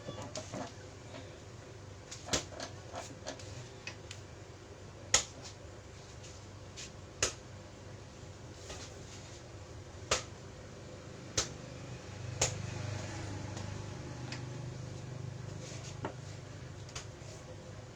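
Scattered sharp clicks and snaps, about seven loud ones at uneven intervals among fainter ticks. A low hum comes in about twelve seconds in and fades a few seconds later.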